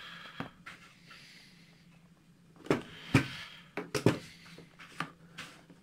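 Cardboard eyepiece box being opened and handled: a brief soft scrape of the sleeve sliding off at the start, then a few sharp knocks and taps from about halfway in as the box and the eyepiece inside are moved about.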